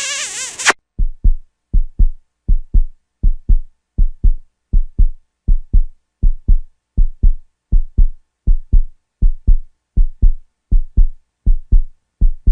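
Heartbeat sound effect: steady pairs of deep thumps (lub-dub) at roughly 80 beats a minute, starting about a second in after the end of a short musical clip.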